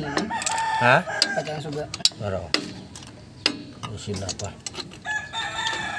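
Sharp metallic clicks and clinks of pliers working the springs and hardware of a drum brake shoe assembly. A pitched call with a rising and falling tone is heard twice, about a second in and near the end.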